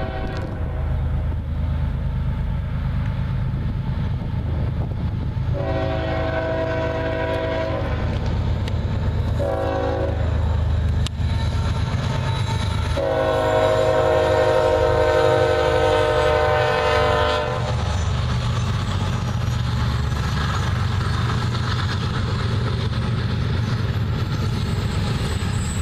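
CSX freight diesel locomotive's multi-note air horn blowing the grade-crossing pattern: a long blast ending just as it begins, then a long, a short and a held long blast whose pitch drops slightly as the locomotive passes. A steady low engine and wheel rumble runs underneath, and after the horn stops the intermodal freight cars roll by with clattering wheels.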